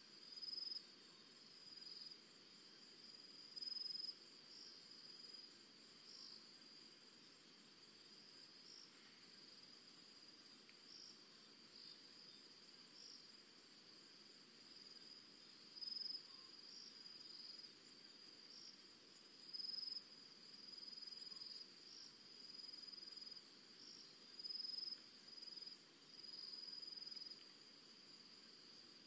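Faint chorus of crickets: a steady high-pitched trill with faster, higher chirping over it.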